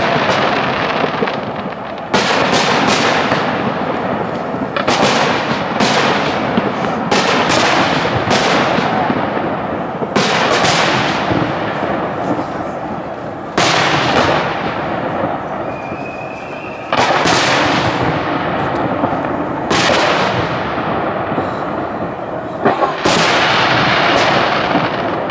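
Fireworks display: aerial shells bursting with sudden bangs every second or few, sometimes two or three in quick succession. Each bang trails off in a long echoing rumble.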